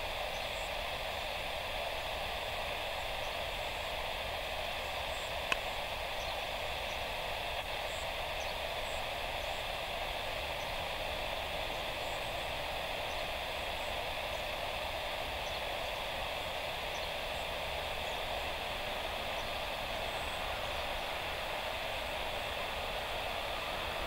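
Steady static hiss from an open airband radio channel between transmissions, with a single click about five and a half seconds in.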